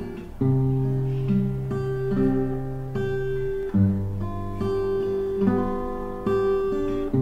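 Acoustic guitar played solo: slow chords left to ring, with a new chord and bass note about every second.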